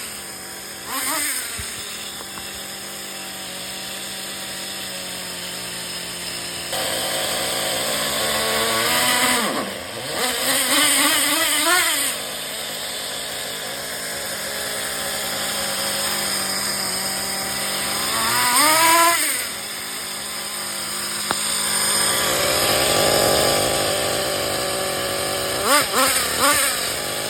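Small nitro glow engine of an RC car with a modified exhaust, running at a steady high-pitched idle and revved in short bursts several times, the pitch sweeping up and falling back.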